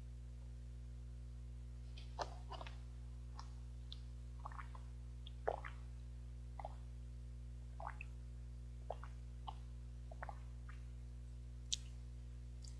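Short wet mouth sounds of milk being sipped through a straw and swallowed: scattered clicks and gulps, about one a second, the loudest near the middle. A steady low electrical hum runs underneath.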